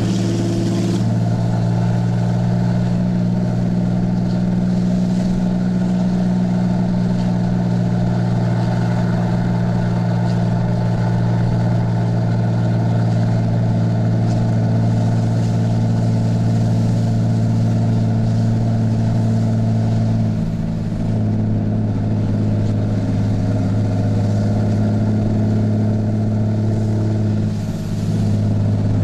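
6.7L Cummins turbo-diesel inline-six of a 2010 Ram 3500 running under towing load, its straight-piped 5-inch side-exit exhaust giving a loud, steady low drone inside the cab. The drone dips briefly and changes pitch twice, about two-thirds of the way in and near the end.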